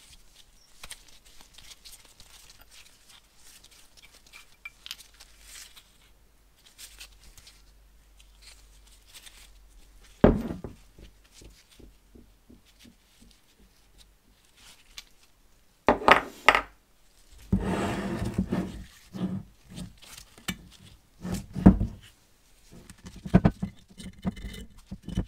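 Rusty steel brake caliper parts being handled and set down: faint handling clicks at first, a single thunk about ten seconds in, then a run of metal knocks, clinks and scraping through the second half.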